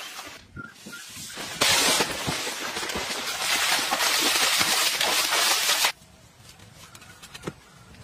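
Water splashing hard as swimmers thrash in a small pool: a loud, even splashing that starts suddenly about one and a half seconds in and cuts off abruptly about six seconds in.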